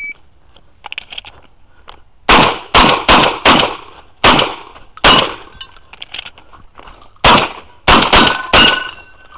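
Benelli shotgun firing about ten shots in three quick strings: four shots, then two, then after a short pause four more.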